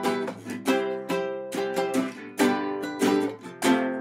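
Ukulele strumming chords in an uneven, lopsided rhythm of about three strokes a second: an instrumental bar of a song in 7/4 time, with no singing.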